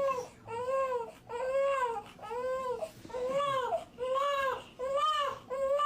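Repeated crying: about eight short wails in a row, each rising and then falling in pitch, coming roughly one every 0.7 seconds.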